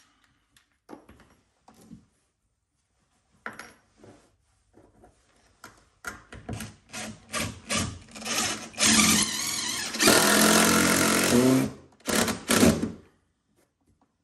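Cordless drill-driver driving a long wood screw into a timber block on a joist: a few light knocks of handling, then from about six seconds in short bursts on the trigger, two longer loud runs, and two final short bursts.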